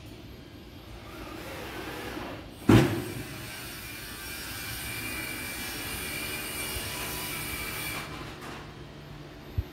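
Construction-site noise: one loud knock, then a steady mechanical whine for about five seconds that stops suddenly, and a small click near the end.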